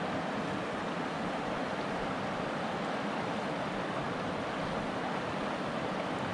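Shallow mountain river rushing steadily over rocks.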